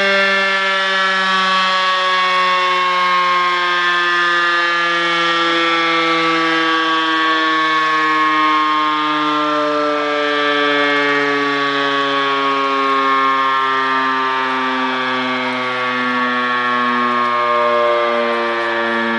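1969 electric rotary siren (5.5 kW) sounding on a fire-station roof and winding down, a loud multi-toned wail whose pitch falls slowly and steadily as the rotor slows.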